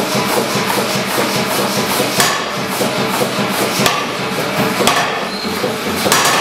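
Large Massey self-contained power hammer running, its motor humming under the rhythmic knocking of the ram. Several sharp heavy blows land from about two seconds in to near the end.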